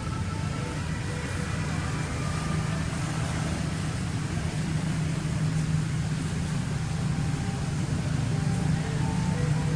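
A steady low engine hum with no change in pitch or level, with faint scattered higher tones above it.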